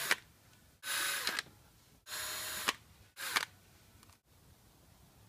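Cordless drill/driver running in short bursts as it backs screws out of a shop vac's motor head: three whirs of about half a second each, about a second apart, each stopping with a click.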